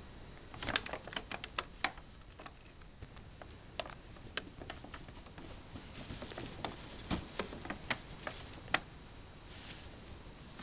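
A cat playing with a stuffed toy against a paper bag on carpet: light, irregular clicks and taps, a quick flurry about a second in and another from about six to nine seconds in.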